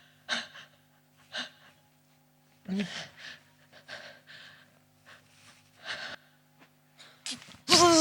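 A person gasping and breathing in short, sharp bursts, one with a brief falling groan, over a faint steady hum. Near the end a loud, wavering, sustained pitched cry breaks in.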